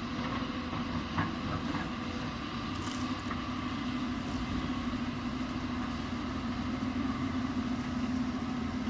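Hyundai 220 excavator's diesel engine running at a steady drone, with a small knock about a second in.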